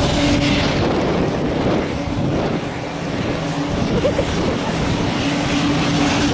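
A small jet's turbine engines running, a steady loud drone with a constant tone over a broad rush of engine noise.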